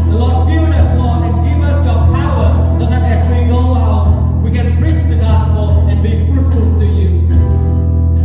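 Live worship band music with singing over a steady, heavy bass.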